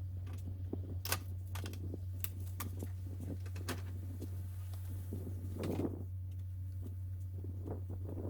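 Scattered light clicks and knocks of plastic car body parts being handled and fitted, with a brief rustle about six seconds in, over a steady low hum.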